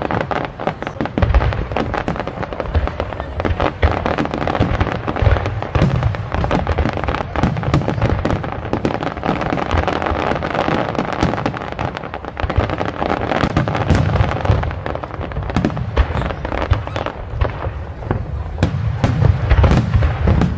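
Aerial fireworks display: shell after shell bursting in quick succession, low booms overlapping with sharp cracks and crackling, with no pause.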